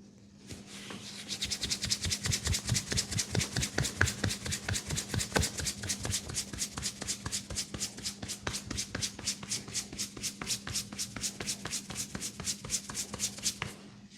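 Hands rubbing rapidly over a person's head and hair in a head massage, a fast even run of brushing strokes at about five a second. It starts about a second in and stops just before the end.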